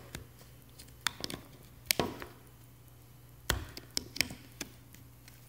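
Hard plastic clicks and taps of a rugged phone case's shell and port covers being pressed and snapped together by hand: about eight sharp, irregularly spaced clicks, the loudest about two seconds in and another about three and a half seconds in.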